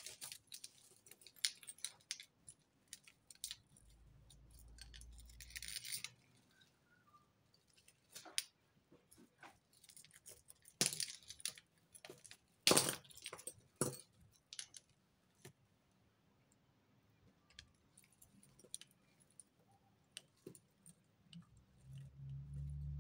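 Metal and bead costume jewellery clinking and jangling as hands sort through a tangled pile of chains and necklaces: scattered light clicks, the loudest about eleven and thirteen seconds in.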